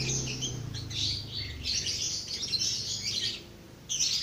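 Many small birds chirping and twittering, with a brief pause near the end. A low hum underneath fades out about three seconds in.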